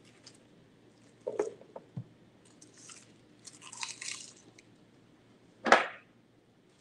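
Dry garlic skins crackling and rustling as a head of garlic is broken apart and peeled by hand, with a few light knocks on the counter and one sharp, loud knock shortly before the end.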